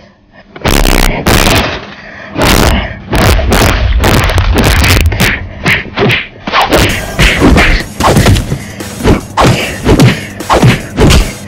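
A fight's worth of dubbed punch and hit sound effects: two heavy thuds in the first few seconds, then a rapid flurry of sharp whacks, several a second.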